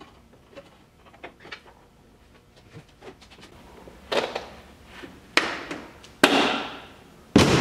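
Work on a car door's window glass and seal: faint clicks and rustling, then four loud knocks about a second apart in the second half, the last the heaviest.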